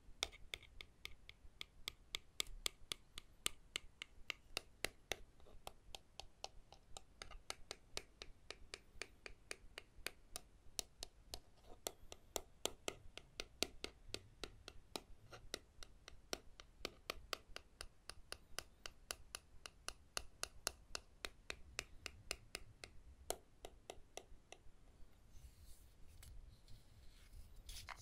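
Quick, even tapping on a wooden object, about three to four taps a second, each a short knock with a slight ring. Near the end the tapping gives way to a scratchy rubbing on the wood.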